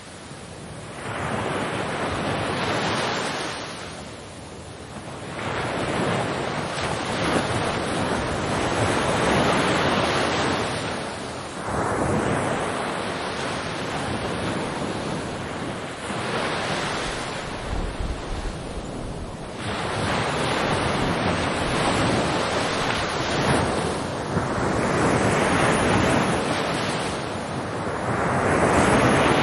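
Ocean waves breaking and washing in and out, each wave a swell of surf noise every four to five seconds.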